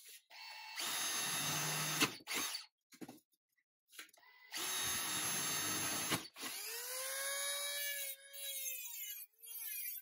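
Cordless drill boring into the thin pressed steel of a toy truck part in two runs of about two seconds each, with a short pause between. After the second run comes a lighter, steady motor whine that rises slightly in pitch.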